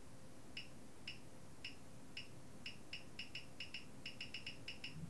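Faint, short high-pitched ticks as the frequency knob of a JDS6600 DDS signal generator is turned step by step, sweeping a sine wave upward; the ticks come irregularly at first, then faster in quick runs.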